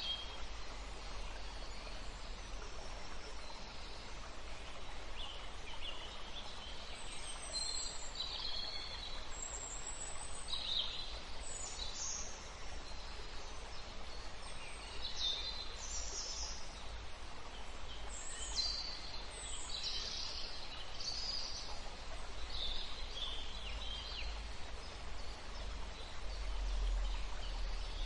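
Birds chirping and calling: short high calls scattered throughout, over a steady hiss of outdoor background noise.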